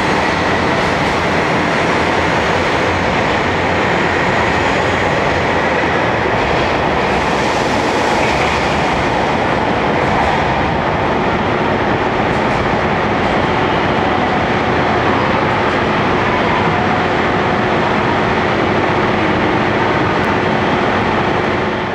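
Train running: a steady, loud rail running noise that fades out at the very end.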